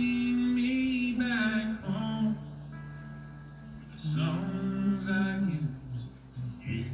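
Male country singer holding long notes over acoustic guitar and band, played from a television: two drawn-out sung notes, the second lower than the first.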